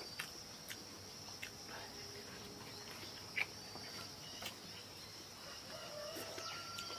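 Steady high-pitched chirring of insects, with a few light clicks of chopsticks against porcelain bowls as people eat.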